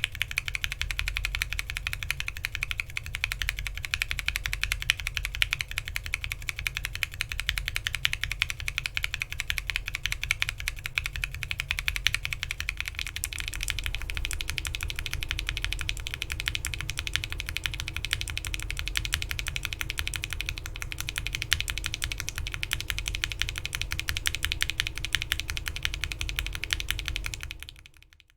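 Continuous fast typing on a mechanical keyboard with lubed NK Cream linear frankenswitches, an FR4 plate and PBT keycaps: first with Alpaca stems, then about halfway through with UHMWPE stems swapped in. The typing fades out just before the end.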